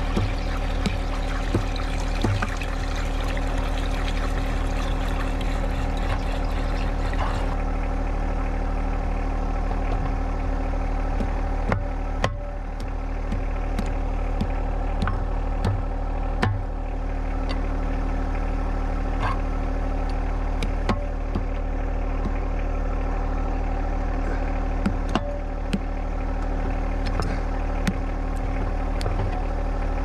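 John Deere 1025R compact tractor's three-cylinder diesel engine running steadily, with scattered sharp clicks and knocks.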